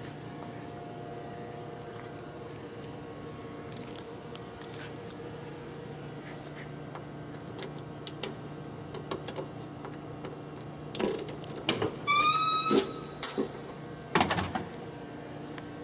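Trunk of a 1974 Chevrolet Monte Carlo being unlocked and opened: scattered clicks and rattles of the lock, a short squeak that rises slightly, then a thump as the lid comes up. A steady low hum sits underneath.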